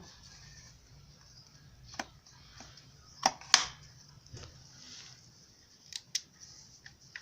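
A few sharp clicks and light knocks of things being handled and set down during an unboxing, spaced out over several seconds, two pairs close together, over a faint steady hiss.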